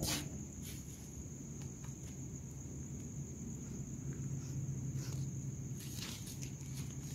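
Crickets chirring, one steady high-pitched trill running on without a break, with a few short clicks over it, the sharpest right at the start and another about six seconds in.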